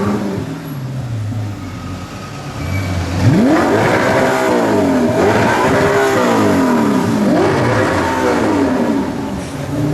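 A supercar engine drops back to idle, then from about three seconds in is revved hard several times, its pitch climbing and falling away with each blip.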